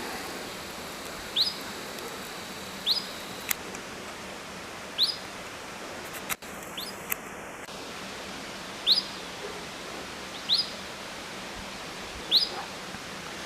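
A bird repeating a short, quick upward-sliding chirp, six times at intervals of one to four seconds, over a steady background hiss. A single sharp click comes about six seconds in.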